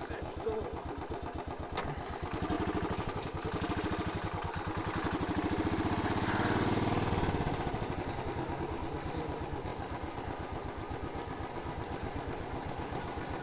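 Motorcycle engine running as the bike rides off at low speed. Its note builds a few seconds in and eases back again about halfway through.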